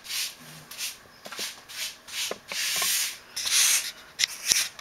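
Rubber grout float scraping wet grout across floor tiles in repeated strokes. Each pass is a short scraping swish, about two a second, with one longer pass a little past halfway and a few small clicks near the end.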